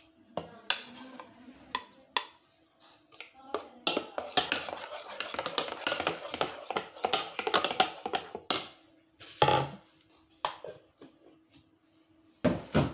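A plastic spoon beating thick yogurt in a bowl, tapping and scraping against the sides. It starts as scattered taps, turns into a few seconds of fast, continuous beating in the middle, and ends with a louder knock near the end.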